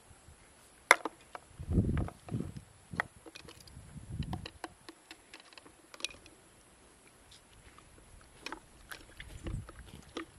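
Irregular clicks, taps and scrapes of a knife working against mussel shells as a shell is pried open, with a few dull low thumps.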